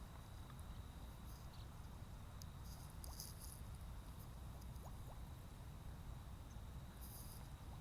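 Faint outdoor ambience: short, high-pitched insect chirps coming every second or few over a steady high hum and a low rumble.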